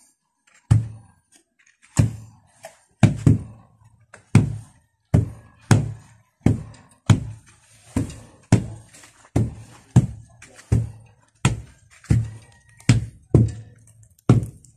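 Wooden hand tamper being lifted and dropped onto loose soil to compact it: a steady run of dull thuds, about one every three-quarters of a second.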